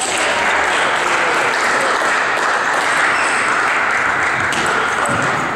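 Spectators applauding steadily after a point in a table tennis match.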